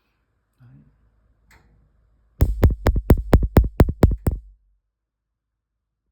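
Gas cooktop spark igniter clicking rapidly, about ten sharp clicks at roughly five a second for about two seconds, with two faint knocks before it. The clicking is heard while no spark shows at two of the burners, a sign of an igniter or connection fault there.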